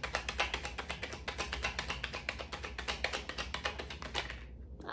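Tarot deck shuffled by hand: a fast run of light card taps and flicks, several a second, that stops about four and a half seconds in.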